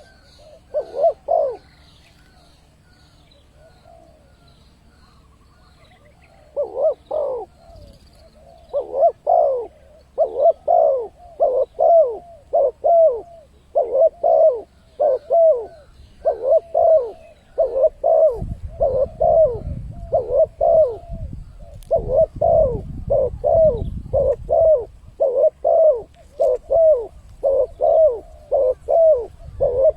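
Spotted dove (tekukur) cooing as a lure call: a couple of coos about a second in, then after a pause a steady run of coos in quick phrases. Faint high chirps of small birds come near the start, and a low rumble lies under the coos in the middle.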